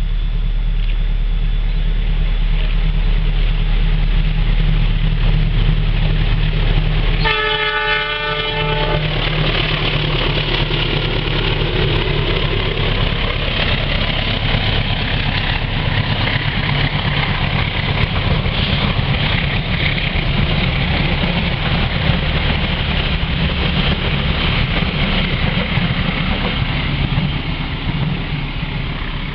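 CC 206 diesel-electric locomotive running as it approaches with a passenger train, then one short horn blast of about a second and a half, about seven seconds in. This is followed by the steady noise of the coaches' wheels on the rails as the train passes, easing off slightly near the end.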